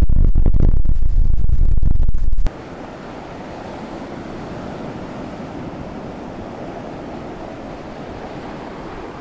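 Strong wind buffeting the microphone: a loud, fluttering low rumble that cuts off suddenly about two and a half seconds in. After that, a steady, much quieter rushing ambience of sea and wind.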